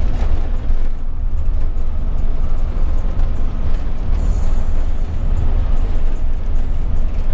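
Steady low rumble of a Yutong-engined coach cruising on a highway, heard inside the driver's cab: engine and road noise with no marked changes.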